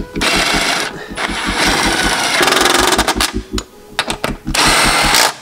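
Cordless ratchet running a bolt in three bursts, the middle one the longest, at about two seconds.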